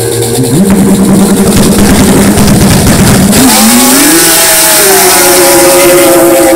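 Drag-racing snowmobiles launching off the start line at full throttle: the engines jump from idle to a loud, steady high-revving note about half a second in, then a rising whine about three seconds in as the sleds pass and pull away.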